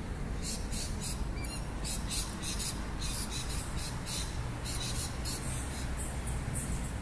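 Insects calling in short, rapidly repeated high-pitched pulses, with a few small bird chirps about a second and a half in, over a steady low rumble.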